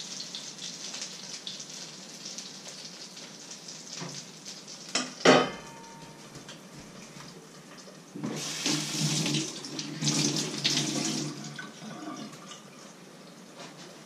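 Kitchen tap running into a stainless-steel sink for about four seconds, briefly interrupted partway. Earlier, pancake batter sizzles in the pan, and a single sharp metal clank of cookware rings out about five seconds in.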